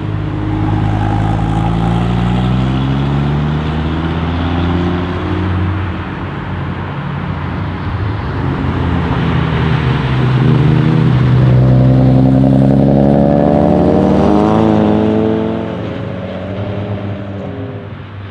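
Straight-piped Audi RS3's turbocharged five-cylinder engine, loud throughout. Its note falls over the first several seconds, then rises sharply under hard acceleration from about eleven seconds in and drops away near the end.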